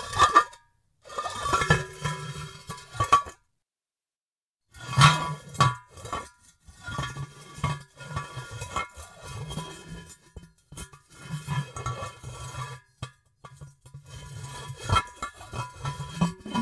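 Glazed ceramic cookie jar being scraped and slid, turned back and forth against a surface. It makes a rough grinding scrape with the jar's body ringing through it. There are three separate takes with silent breaks between them: one short at the start, one about a second in, and a long one from about five seconds in to the end.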